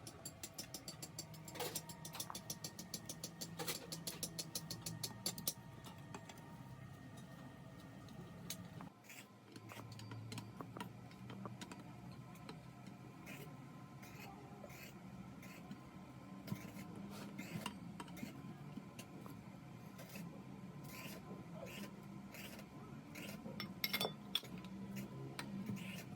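Light metal clinking and tapping of tools and parts, starting with a fast even run of ticks for the first several seconds and going on as scattered clicks, over a steady low hum.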